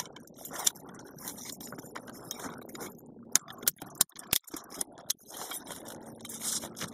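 High-tensile fencing wire being handled and worked at a strainer post: a series of sharp metallic clicks and rattles, thickest about halfway through, with a short scraping sound near the end.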